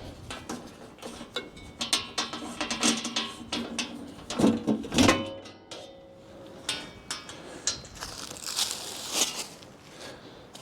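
Scattered metal clicks and clanks as pins and covers on a Wood-Mizer LT40 bandsaw mill's blade housing are handled for a blade change, with a brief scraping sound about eight seconds in.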